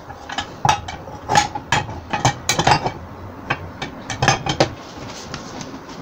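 Aluminium mess-tin pan with a folding handle being handled and set down on a gas burner's iron grate: a dozen or so irregular sharp metallic clinks and knocks, which stop about a second before the end.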